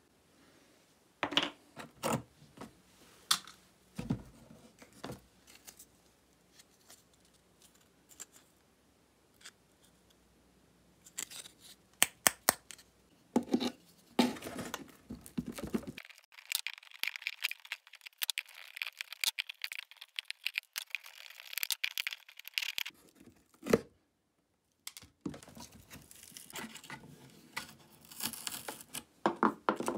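Old fabric covering being peeled and torn off a wooden suitcase, with scattered clicks and taps of a metal tool against the case. About halfway through comes a long stretch of tearing and scraping, which breaks off briefly near the end before the scraping and clicks resume.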